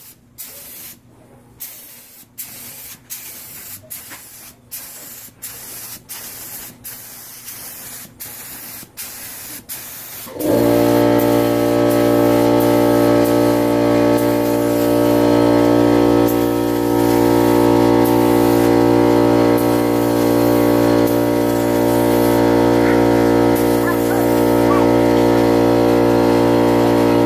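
Spray gun hissing as clear coat is sprayed, broken by short gaps between passes. About ten seconds in, a motor starts with a loud, steady hum that drowns out the spray.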